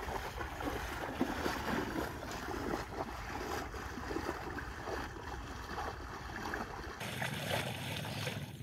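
A person wading through knee-deep river water, legs sloshing and splashing with each stride in an uneven, continuous churn.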